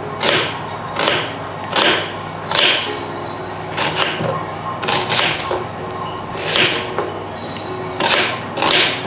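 Kitchen knife rough-chopping red onion on a wooden chopping board: a crisp cut through the onion ending in a knock of the blade on the board, repeated about once a second.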